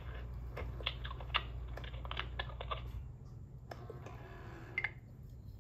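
Amazing Amanda animatronic doll being fed a toy pizza slice: a quick run of light plastic clicks over a low motor hum that stops about three seconds in, then a soft rustle ending in a click.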